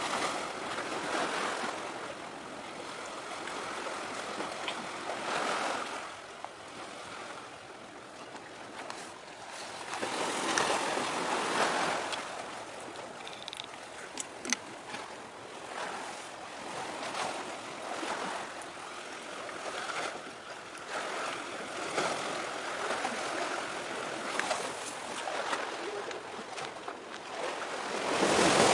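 Sea waves washing against a breakwater of concrete tetrapods, a rushing noise that swells and ebbs in irregular surges, with one sharp tick about halfway through.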